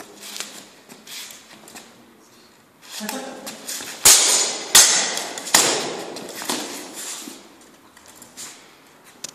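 Full-contact medieval sword fight: a flurry of blows with blunt steel swords clashing and striking armour, three sharp hits coming about four to five and a half seconds in. Lighter footsteps and scuffing on a hard floor before and after the exchange.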